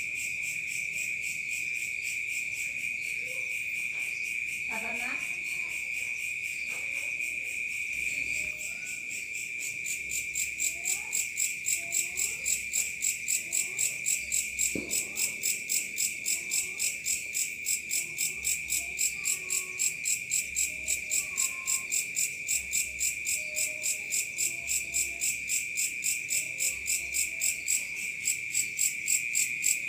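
Night insects calling in the countryside: a steady high-pitched trill, joined about ten seconds in by a louder, higher pulsing chirp that repeats about two and a half times a second.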